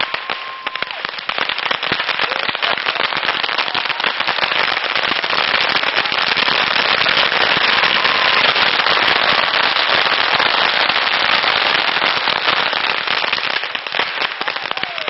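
Hundreds of bottle rockets firing at once from a washtub: a dense, continuous crackle of launches and pops that builds to a peak midway and thins out near the end, with a few whistles.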